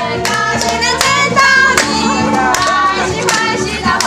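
Music: a song with singing over a steady beat, a sharp percussive hit about every three-quarters of a second.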